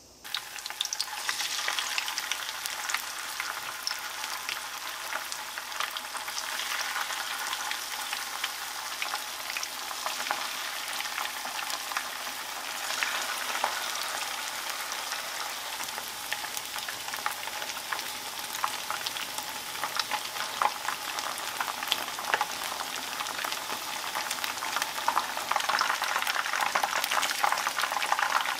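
Shiso-wrapped chicken pieces in rice-flour batter shallow-frying in hot oil in a frying pan: a dense, steady sizzle and crackle of bubbling oil. It starts suddenly a moment in and grows louder near the end.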